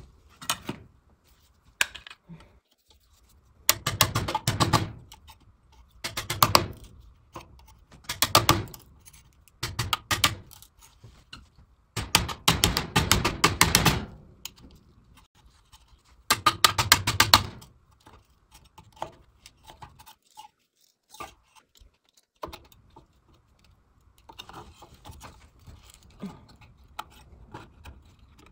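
Six short bursts of rapid clicking and rattling from a flat metal prying tool being worked between two nailed wooden boards of a shoe form clamped in a bench vise, to pry them apart, followed by fainter scattered clicks.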